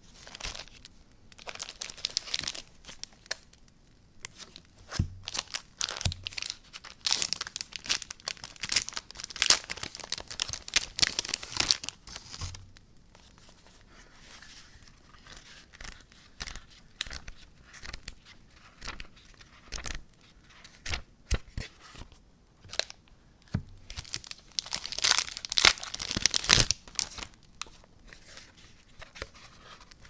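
Crinkly packaging being handled and torn open by hand, in three spells of dense crackling and tearing, the longest in the first half, with a few soft thumps and scattered light crinkles in between.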